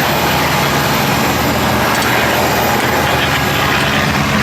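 Steady jet aircraft engine noise: an even rush with a low, steady hum underneath.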